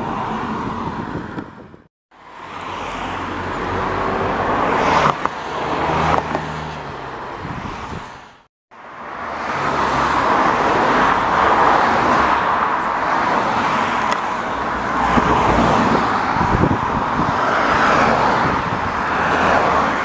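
Road traffic: vehicles driving past on a tarmac road, a steady rushing noise of tyres and engines that swells and fades as they pass. The sound drops to dead silence twice, about two seconds and eight and a half seconds in, where the footage is cut, with a low engine hum in the stretch between the cuts.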